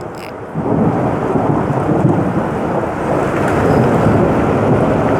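Thunder rumbling: a long low rumble that swells up just under a second in and carries on steadily.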